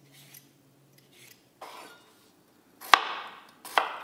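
A few faint scraping strokes of a hand vegetable peeler on a raw potato, then two sharp chops, under a second apart, of a chef's knife cutting through a peeled potato onto a wooden cutting board.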